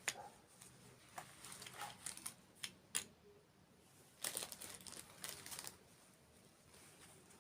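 Close-miked ASMR eating sounds from a dessert mukbang: a few sharp crisp clicks, then a denser run of crackling about four seconds in.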